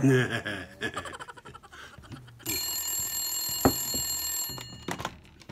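A telephone ringing electronically for about two seconds from around halfway through, a bright steady ring that cuts off. Before it, a loud short sound at the start, then clicking and crunching while cereal is eaten from a bowl with a spoon.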